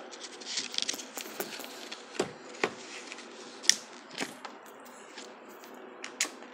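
A paper J-card being slid off a cardboard box set: a rustle of paper sliding against card, then a few sharp clicks and taps as the box is handled.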